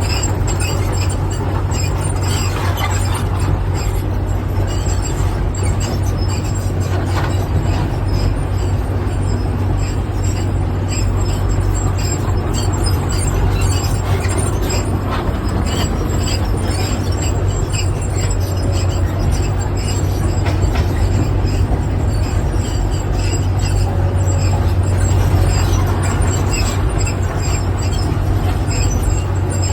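Heavy machinery's diesel engine running steadily with a low, even drone, with no revving or stopping.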